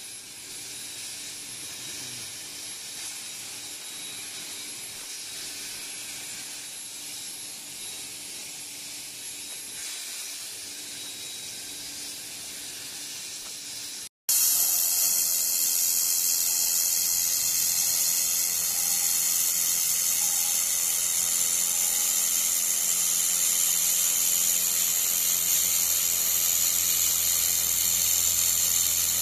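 Steady hiss of a CNC gantry plasma cutter cutting steel plate, with a faint high whistle over it. About halfway through it gives way abruptly to a louder, brighter steady hiss over a low hum as a handheld laser welding torch runs a seam.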